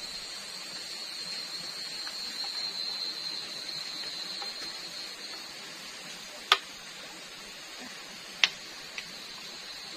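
Steady high-pitched chorus of night insects, with two sharp knocks a little past the middle and near the end as a bamboo cooking tube is handled and tapped out over foil.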